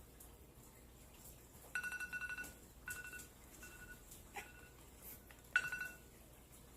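Microwave oven beeping: five electronic beeps on one high pitch, spaced unevenly, with the first and last held longer and louder than the three short ones between.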